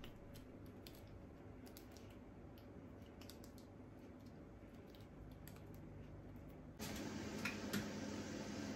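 Faint, irregular small plastic clicks and taps as the pieces of an insulated water bottle's lid are handled and fitted back together. About seven seconds in, the background turns abruptly louder, with a steady hum and a couple of sharper clicks.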